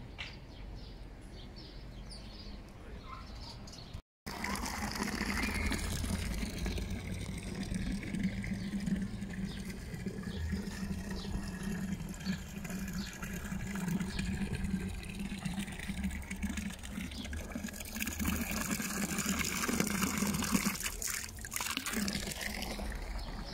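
Water from a marble fountain's spout splashing and trickling steadily onto the stone. It begins about four seconds in, after a few seconds of quieter outdoor ambience.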